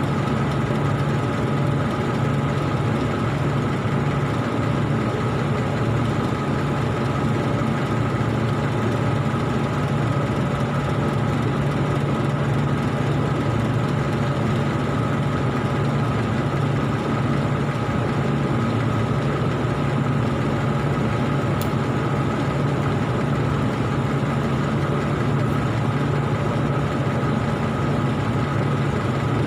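Argon (TIG) welding equipment giving a steady, unbroken hum with a hiss over it.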